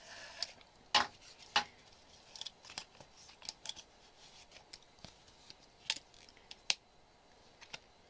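Irregular small clicks and taps as a vintage metal light meter is handled in its leather holster, with a few sharper clicks among faint rubbing.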